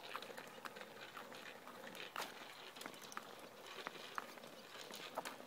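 Faint footsteps on a paved path: light, irregular taps and scuffs.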